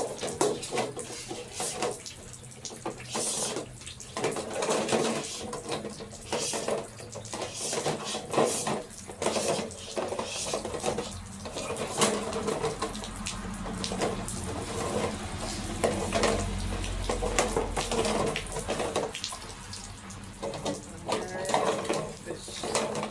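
Rainwater running and splashing, broken by irregular knocks and rattles from heat cables being fished through a downspout. A low rumble swells and fades about two-thirds of the way through.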